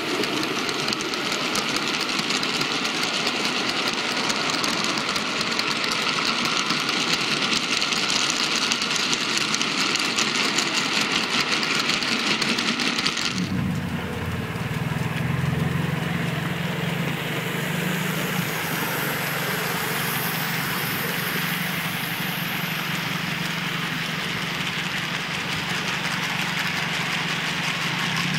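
OO gauge model train running: for the first half the wheels of passing open wagons rattle and click over the track close by. Then, after a sudden change about halfway, a steady low hum as a model locomotive approaches hauling a long train of mineral wagons.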